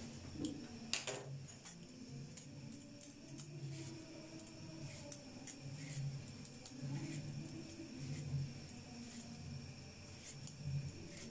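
Knife peeling and cutting a raw sweet potato by hand: scattered light clicks and scrapes, with a sharper knock about a second in.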